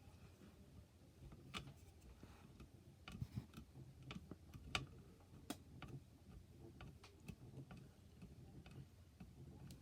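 Faint, irregular small clicks and ticks of a screwdriver working out tight screws on a graphics card's heatsink, metal tapping on metal, over a low hum.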